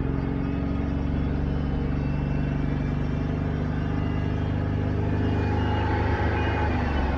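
Jeep 3.8-litre V6 engine running steadily, with a whining noise over the engine note.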